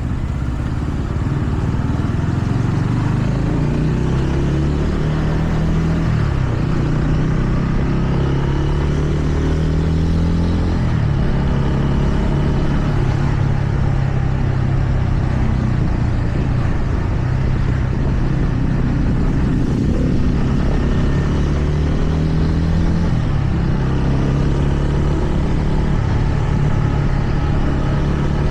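TVS Ronin motorcycle's single-cylinder engine running on the move, climbing in pitch as it pulls through the revs and dropping back at gear changes in the first half, then holding a fairly steady speed.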